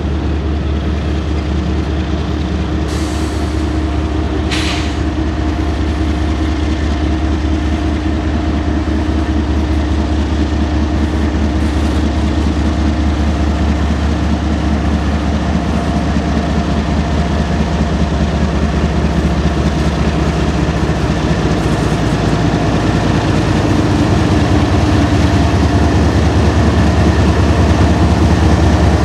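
Double-stack intermodal freight train rolling past with a steady low rumble, while mid-train diesel-electric locomotives approach and pass close, their engines droning with a steady hum and growing louder toward the end. Two short hisses a few seconds in.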